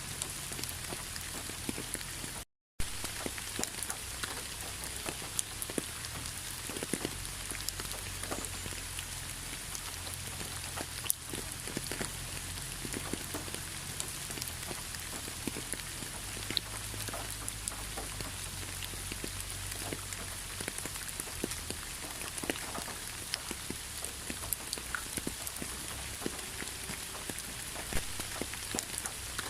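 Steady rain, with many separate drops clicking sharply against a surface over an even hiss. The sound cuts out completely for a split second about two and a half seconds in.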